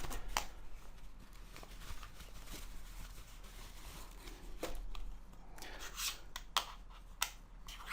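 Hands handling small accessories and their packaging: faint rustling with a few sharp clicks and taps, most of them in the second half.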